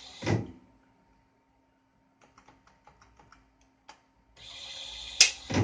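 Automated lathe toolchanger turret indexing: a whirring drive that ends in a heavy clunk as the turret locks just after the start. Then a pause with faint light tapping like keyboard typing, and near the end the whirring starts again with a sharp click and another clunk as it locks on the next tool.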